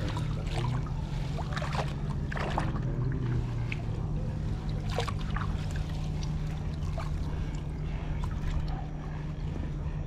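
Water dripping and splashing off a cast net as it is hauled in from the water by hand, with scattered drips and small splashes, mostly in the first half, over a steady low hum.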